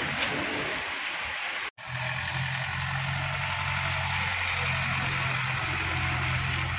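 Street noise, cut off abruptly about two seconds in, followed by a steady low engine hum, an engine idling nearby.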